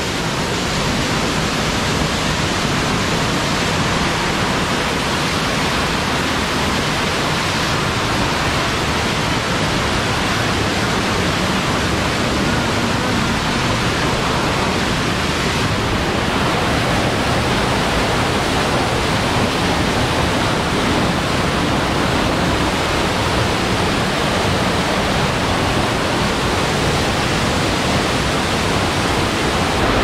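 Waterfall cascading right beside the microphone: a loud, steady rush of falling water.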